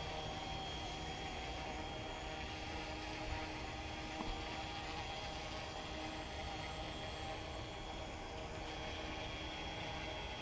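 Small electric remote-control helicopter (Yu Xiang UH-1 Huey) hovering, its motor and rotors giving a steady whir with a thin, constant high whine.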